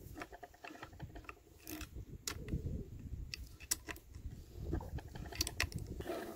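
Scattered light clicks and clinks at irregular intervals, small metal parts and tools handled during the reassembly of a submersible pump, over a low uneven rumble.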